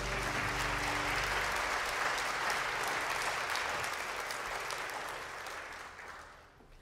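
Congregation applauding in a large sanctuary, with the band's last low note dying out in the first second or so. The applause tapers off over the last couple of seconds.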